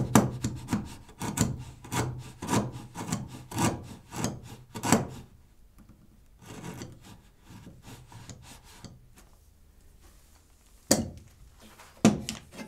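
Router plane shaving a mortise wall: quick scraping strokes of the blade across the wood, about two a second, for the first five seconds or so, then lighter, fainter passes. Two sharp knocks follow near the end.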